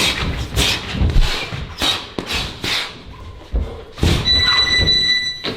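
Boxing gloves striking pads in an irregular run of thuds, with squeaks mixed in. Near the end a steady high beep sounds for about a second.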